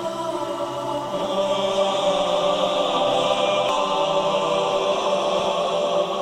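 Slow sacred choral music: male voices holding long, sustained chords, swelling louder about a second in.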